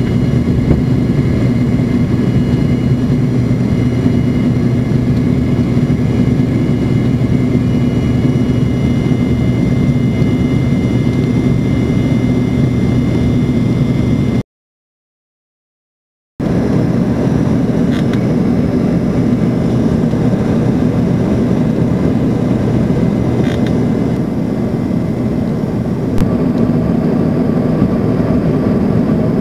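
Steady cabin roar of an Embraer ERJ-145 regional jet in flight: the rear-mounted Rolls-Royce AE 3007 turbofans and airflow, with a faint steady high whine over the roar. About halfway it cuts off dead for roughly two seconds, then the same cabin roar resumes.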